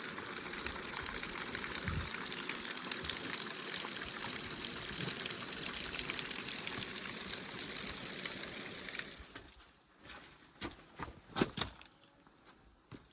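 Spring water running and gushing steadily, cutting off suddenly about nine seconds in. A few short, sharp sounds follow near the end.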